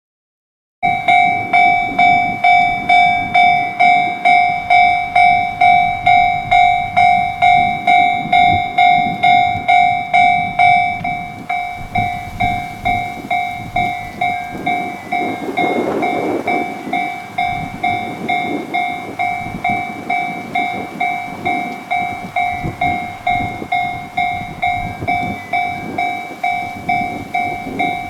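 Japanese railway level-crossing alarm ringing, a repeating ding about twice a second that starts about a second in and becomes a little softer after about eleven seconds. Under it a train rumbles over the crossing, loudest around the middle.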